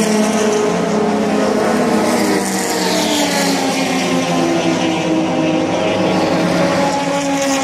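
Several racing car engines running hard as the cars pass along a circuit straight. Their overlapping engine notes drift lower in pitch as the cars go by.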